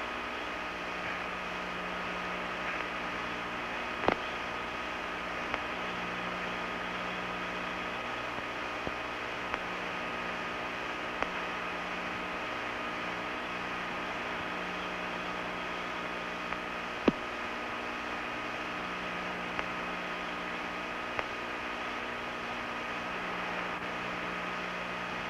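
Steady hiss and hum of a space station cabin's ventilation fans and equipment, with several fixed tones and a low hum that swells and fades every few seconds. Two sharp clicks stand out, about four seconds in and again past the middle.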